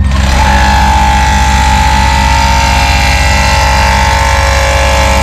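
Milwaukee cordless air plunger's motor starting up and running with a steady whine, building air pressure to blast a blockage out of a toilet drain.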